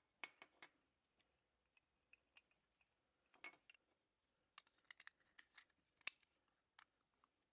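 Faint, irregular clicks and short scrapes of small plastic and metal toy parts knocking together as a clear plastic window and a white plastic interior are pressed into a Tonka toy truck's yellow metal cab.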